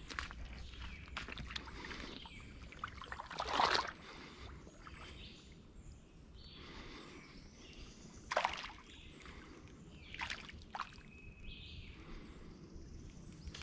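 Footsteps wading and sloshing through a shallow creek, with small splashes and knocks and a few louder swishes about four, eight and ten seconds in.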